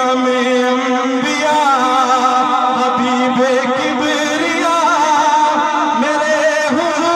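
A man singing a Punjabi naat into a microphone over a sound system, drawing out long wavering melismatic notes with no clear words.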